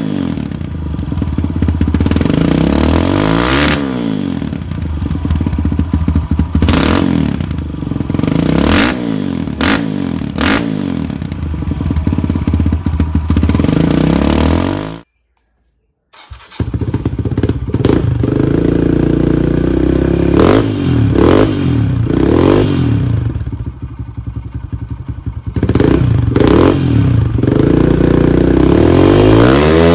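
Kawasaki KLX140 four-stroke single-cylinder dirt bike engine idling and being blipped, its revs rising and falling several times, first through an FMF silencer. After a short cut it runs through a Pro Circuit T-6 full exhaust, revved in quick blips and then held higher near the end.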